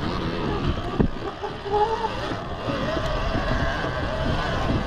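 Two-stroke dirt bike engine, a 2020 TM EN300 TPI, running at low revs while riding slowly, its pitch wavering up and down. A single sharp knock about a second in.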